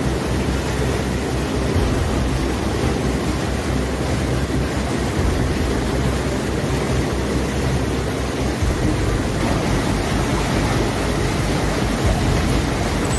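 Floodwater rushing through a concrete weir overflow channel: a loud, steady noise of turbulent water.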